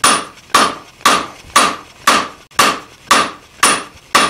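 Hand hammer striking a red-hot steel bar held on an anvil, forging its tapered end. Steady blows about two a second, nine in all, each with a short metallic ring that dies away.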